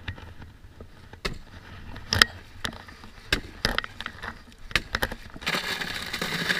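Handling noise: a string of short knocks and clicks over a light background rustle, then a longer stretch of denser rustling near the end, as a person moves about wearing a chest-mounted camera and handles a plastic bag.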